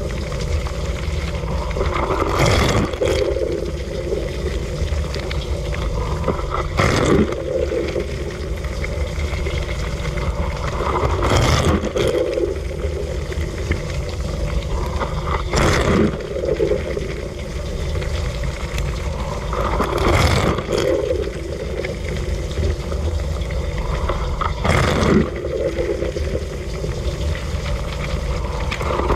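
Dishwasher wash cycle heard from inside the tub: the pump runs steadily and water sprays continuously, with a louder rush of spray coming round about every four and a half seconds.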